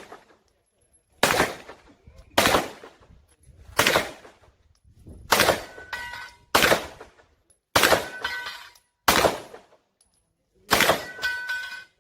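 Glock 34 Gen4 9 mm pistol firing slow, single shots, about eight of them roughly a second and a half apart. A brief metallic ring follows some of the shots.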